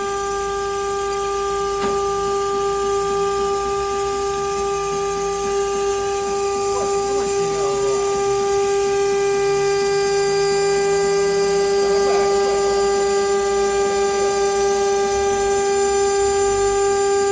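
Stone CNC countertop hole-cutting and polishing machine running with a steady whine from its spindle, with fainter tones sliding slowly up and down beneath it.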